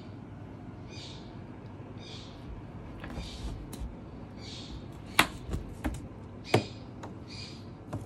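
Ginger domestic cat making short, high chirping calls about once a second as it plays. Two sharp knocks a little past the middle are the loudest sounds.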